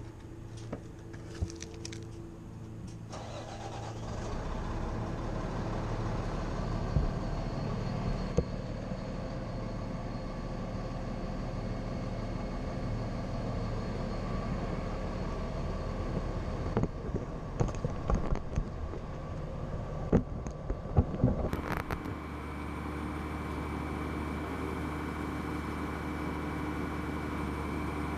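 An engine running steadily, with a handful of sharp knocks and clicks around the middle. It gives way to a different steady hum near the end.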